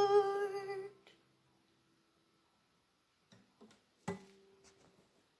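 A woman's held sung note over an acoustic guitar, fading out about a second in. Then near silence with a few soft knocks, and a click with a short faint ringing tone about four seconds in.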